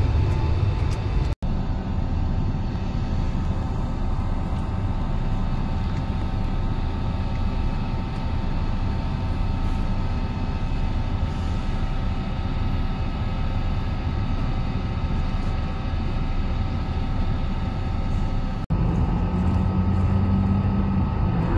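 Steady low drone of a ferry's engines and machinery, with a few constant hum tones over it. It drops out for an instant about a second and a half in and again near the end.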